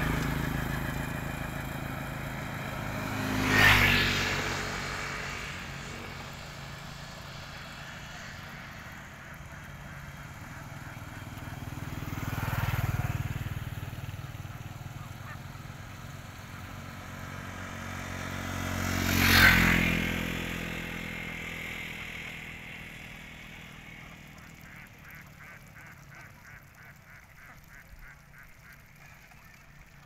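A flock of domestic ducks quacking and calling while feeding in a flooded rice paddy, as three vehicles pass on a nearby road, each swelling up and fading away, about 4, 13 and 19 seconds in.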